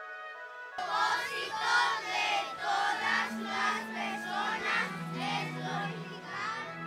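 A group of children's voices calling out together in unison, cutting in suddenly about a second in over the end of soft background music.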